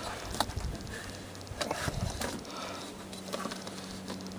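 Faint taps and soft handling noise as pie dough is pressed and fitted into a metal pie pan on a stainless steel table, with a few sharp little ticks over a low, uneven rumble.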